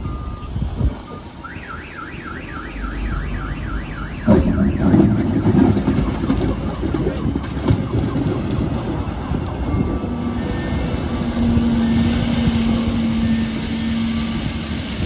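Volvo L120H wheel loader's diesel engine working under load as its bucket is driven into a crushed-stone stockpile, with a sudden loud crunch about four seconds in and stones rattling after it. Before that, a warbling alarm rises and falls about four times a second for roughly three seconds.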